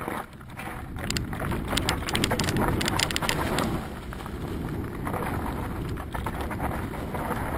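Mountain bike riding fast downhill on a rocky, leaf-strewn dirt trail: knobby tyres crunching over stones and dry leaves, with a dense clatter of rattles and knocks over the bumps, most of it between about one and four seconds in.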